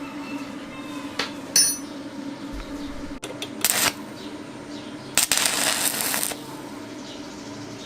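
Metal motorcycle parts and tools clinking during disassembly. There are a few sharp clicks, a bright ringing clink about a second and a half in, then two hissing, scraping noises, the second about a second long.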